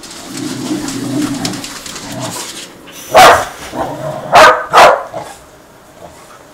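Shetland sheepdog vocalising: a low, drawn-out sound for about a second and a half, then three loud, sharp barks, the last two close together.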